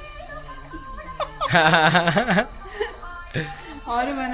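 Crickets chirping in a steady, evenly pulsed high trill, with people's voices talking over it, loudest about a second and a half in.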